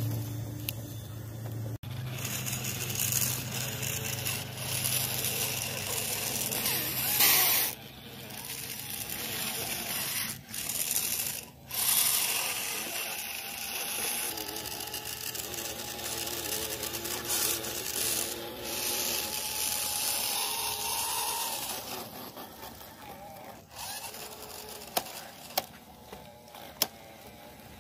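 Small electric drive motors and gearboxes of a radio-controlled model bulldozer whining and whirring as it pushes soil and rocks with its blade, the pitch wavering with the load. A low motor hum from the model dump truck comes first, and a few sharp clicks come near the end.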